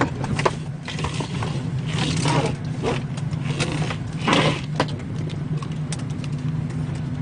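Steady low hum of a Boeing 737-800 airliner cabin during boarding. Over it come scattered clicks and several bursts of rustling as clothing brushes against the microphone, the loudest about four seconds in.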